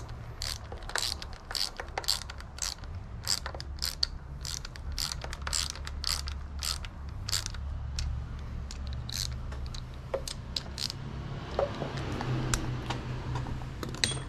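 Hand ratchet clicking in quick runs as bolts on the engine's timing-belt components are snugged up by hand; the clicks thin out after about ten seconds.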